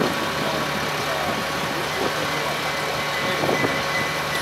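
Heavy truck engine idling steadily, a constant hum with a few fixed tones over it.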